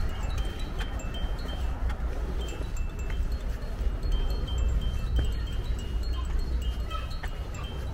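Wind rumbling on the microphone, with light, high chime-like tinkling: short clear tones at a few pitches repeating through the whole stretch.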